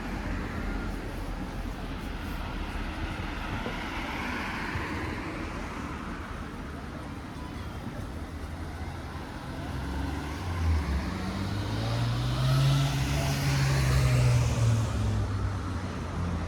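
Street traffic: a car drives past close by, building from about two-thirds of the way in and loudest near the end, its engine hum over the hiss of tyres. A fainter vehicle passes earlier.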